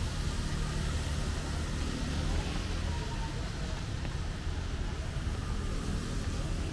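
Steady rain hiss on a wet city street, over the low rumble of motor traffic running nearby.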